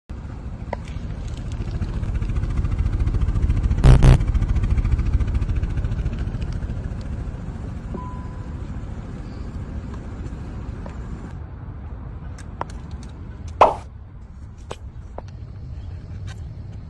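Car engine running with a steady low rumble that swells over the first four seconds and then eases off. Two sharp knocks come about four seconds in, and another near the end.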